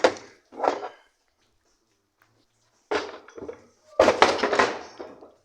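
Metal parts and tools clanking and thunking as they are handled, in short sudden bouts about three seconds in and again from about four seconds in, with quiet gaps between.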